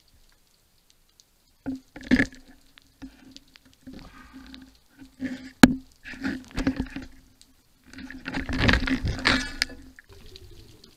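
Underwater knocking, rubbing and scraping against a speargun as a gloved hand grabs a speared octopus and handles the gun and shaft, in irregular bursts with a low hum. A sharp click comes a little past halfway, and the loudest stretch of scraping comes near the end.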